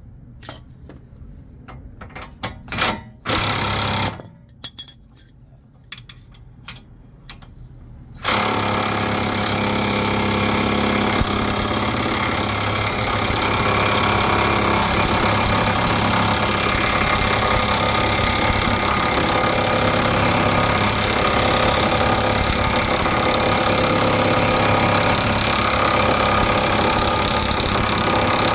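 Impact wrench hammering on the threaded rod of a wheel bearing press tool, driving the pressed-in wheel bearing out of the knuckle. A short burst about three seconds in after some tool clatter, then steady continuous hammering from about eight seconds in.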